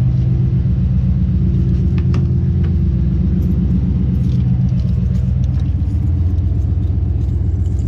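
A car or truck engine idling, a steady low rumble, with a few light clicks about two seconds in; the engine note shifts slightly about six seconds in.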